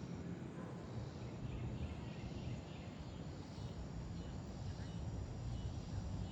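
Outdoor background noise: a steady low rumble with faint, scattered high chirps through the middle.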